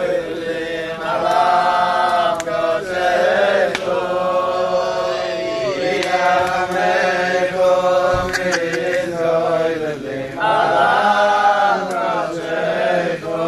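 A group of voices singing a slow, unaccompanied kumzitz sing-along melody together, holding long notes in phrases with short breaks between them.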